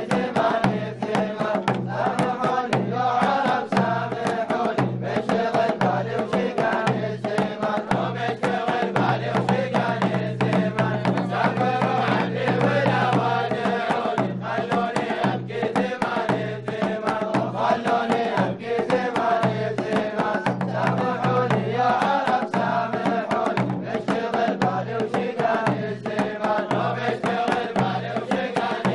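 Group of men chanting a traditional Omani folk song together over hand drums beating a steady, repeating rhythm.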